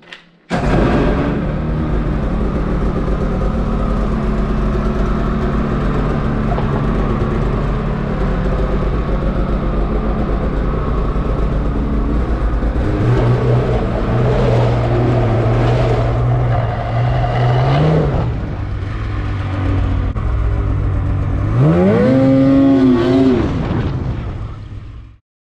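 Polaris Assault snowmobile's two-stroke engine starts up and runs steadily, picks up a little as the sled pulls away, then revs up with a rising pitch about 22 seconds in before cutting off suddenly.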